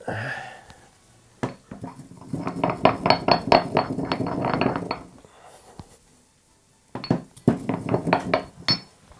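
Stone pestle pounding and grinding caraway seeds with salt in a stone mortar, in quick clinking strokes. A single knock about a second and a half in, a run of about two and a half seconds, a pause, then a shorter run about seven seconds in.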